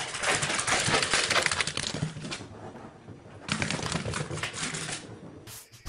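A small dog's claws clicking and scrabbling rapidly on a smooth hard floor as it runs and slips, in two bursts: one over the first two and a half seconds and a shorter one a little after the middle.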